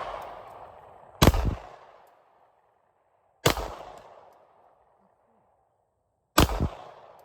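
Three handgun shots at slow, uneven spacing, a couple of seconds apart. Each is a sharp crack followed by a ringing tail that dies away over about a second. The first moment also holds the fading tail of a shot fired just before.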